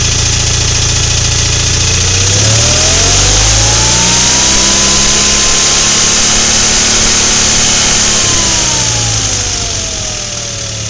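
Onan B43G opposed-twin engine running, brought up from idle to a higher speed about two seconds in, held there for a few seconds, then let back down toward idle near the end.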